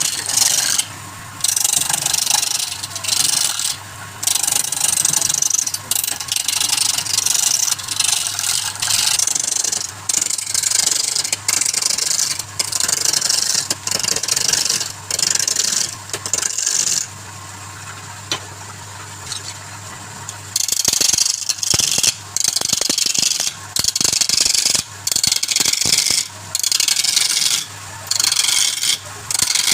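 Wood lathe running with a low hum while a turning tool scrapes the spinning workpiece in repeated passes. The hissy rasping comes in spells of a second or two with short breaks, and pauses for a few seconds in the middle, leaving mostly the hum.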